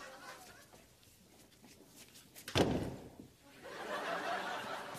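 A door banging once, a single loud bang a little past halfway through.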